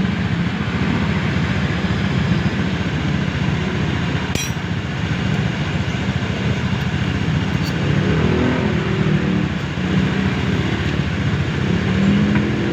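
Car engine running steadily with its fan belt turning, with a short click about four and a half seconds in.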